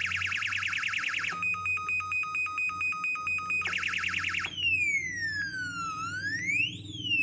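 UM3561 siren sound-generator chip cycling through its electronic effects: a fast pulsing warble, then rapid beeping on one steady tone for about two seconds, the warble again briefly, and from about halfway a slow siren wail that glides down, rises again and starts to fall.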